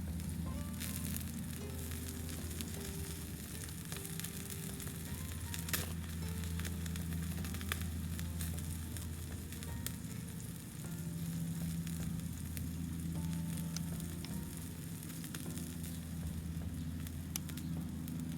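Skewers sizzling over a wood stove's fire, with scattered crackles, under soft background music.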